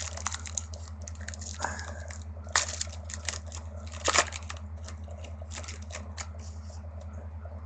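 Trading card pack wrapper crinkling and tearing open by hand, with cards rustling and sliding against each other in irregular clicks. The sharpest crinkles come at about two and a half and four seconds in.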